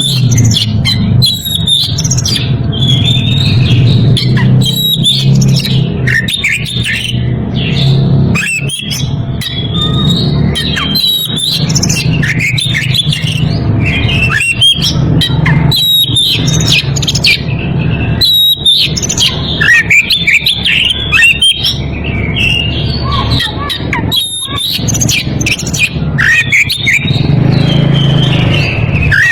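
Oriental magpie-robin (kacer) in breeding condition singing continuously: rapid varied whistles mixed with harsh chattering notes, a challenge song aimed at rivals. A steady low hum runs underneath.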